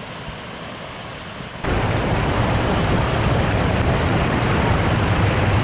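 Stream water rushing over a low stepped weir; about a second and a half in it jumps to much louder, close rushing white water pouring over the cascade.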